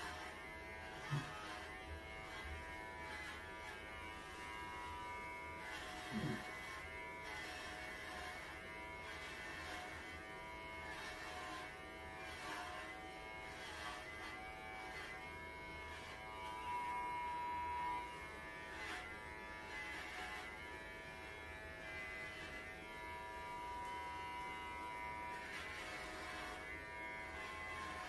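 Electric pet clippers buzzing steadily as they shave a Welsh Corgi's coat short, with two brief low sounds about a second in and about six seconds in.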